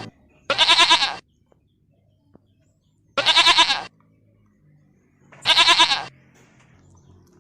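Goat bleating three times, a couple of seconds apart; each bleat is a short quavering "mbekk" under a second long.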